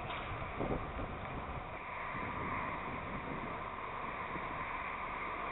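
Wind rumbling on an outdoor microphone over a steady background hiss.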